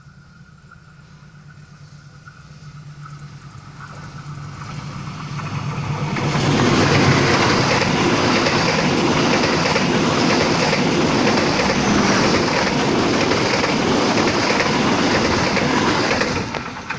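CC 206 diesel-electric locomotive and passenger train approaching with a steady low engine hum that grows louder. From about six seconds in, the coaches pass close by with a loud rumble and a rhythmic clatter of wheels over the rail joints.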